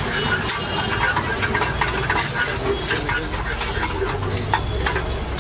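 Food sizzling in a frying pan over a gas burner, with a metal spatula clicking and scraping against the pan many times.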